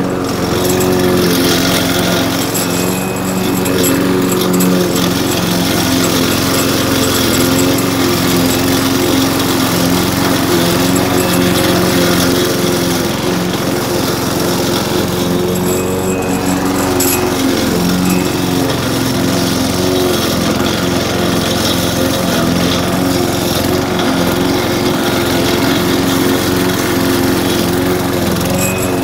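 Brute walk-behind rotary lawn mower's small gas engine running steadily under load while cutting tall grass, its pitch wavering briefly about halfway through.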